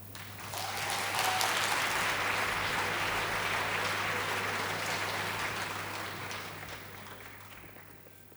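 Applause: a dense patter of many claps that swells about a second in, holds steady, then fades away over the last couple of seconds.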